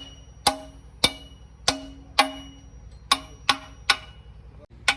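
Hammer blows on a steel gearbox part, about seven sharp strikes at an uneven pace, each one ringing briefly like a bell.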